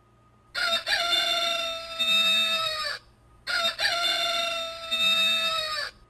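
A rooster crowing twice, the same recorded crow played back to back, each about two and a half seconds long, used as a wake-up call.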